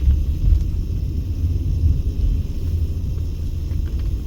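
Low, steady rumble of a car being driven: road and engine noise with no sharp events.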